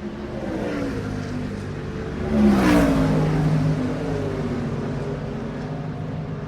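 NASCAR stock car engine passing by at speed. It peaks in loudness about two and a half seconds in, and its pitch drops as it goes past.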